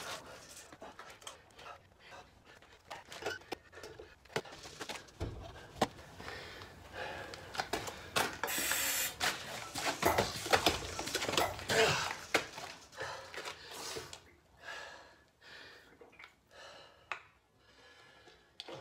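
A Lister diesel engine being hand-cranked: irregular metallic clanks and knocks from the starting handle and the turning flywheel, with no steady running beat of a started engine.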